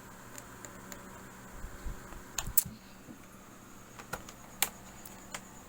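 Sharp plastic clicks and taps from a thin homemade pry tool working around a laptop's plastic bottom case: a pair of clicks about two and a half seconds in, the second the loudest, then single clicks near four, four and a half and five seconds.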